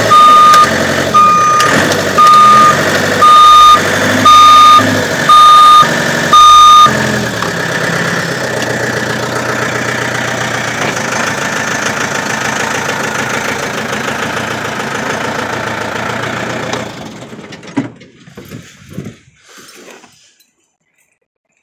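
Forklift backing up: its reversing alarm beeps about once a second, seven times, over the running machine. The forklift then runs on steadily and shuts off about 17 seconds in, followed by a few faint knocks.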